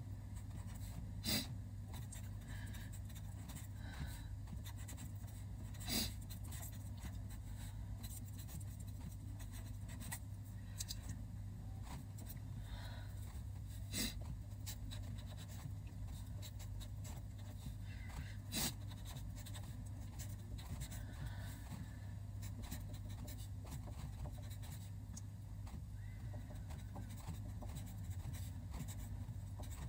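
Black marker pen writing Chinese characters on a sheet of paper, with soft strokes over a steady low hum. Four sharp ticks stand out, spread across the stretch.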